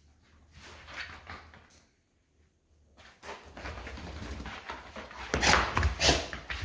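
An American Akita puppy and a golden retriever play-wrestling. Light scuffling at first, then from about three seconds in a run of rough growling and snarling that grows louder, with two loud outbursts near the end.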